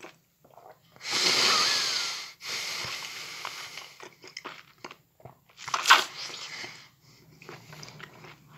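Close-up mouth sounds of a whole peeled mandarin being chewed: wet chewing and squelching with loud, noisy breaths, and a sharp louder burst about six seconds in.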